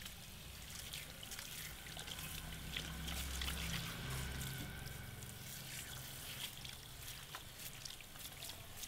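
Handheld shower sprayer running water over wet hair into a shampoo basin: a steady spray and trickle with small splashes and ticks. Underneath is a low hum, strongest in the first half.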